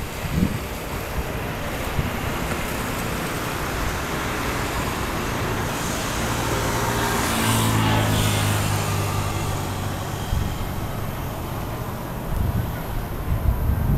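Road traffic with one motor vehicle passing: its engine hum swells to a peak about halfway through and then fades, over a steady wash of city traffic noise.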